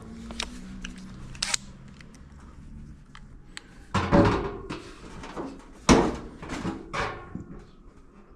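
Several sharp knocks and clatters of the dryer's sheet-metal cabinet panels and parts being handled and fitted back together, loudest about four and six seconds in.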